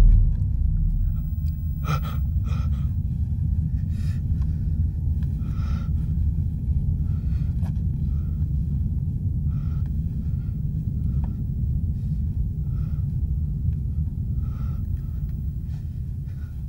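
Short gasping breaths, repeated a dozen or so times at uneven intervals, over a steady low rumble, in the stunned aftermath of a grenade blast; it fades out near the end.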